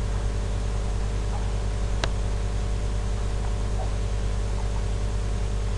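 Steady electrical hum with a constant hiss, and a single sharp click about two seconds in.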